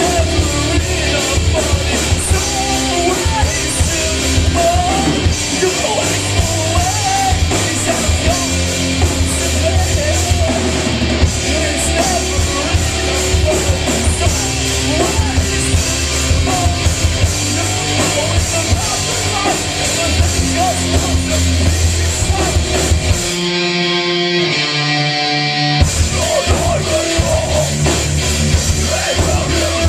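Live rock band playing loud, with electric guitars, bass guitar, keyboard and drum kit under a singer. About three-quarters of the way through, the drums and bass drop out for about two seconds, leaving a sparser pitched part, then the full band comes back in.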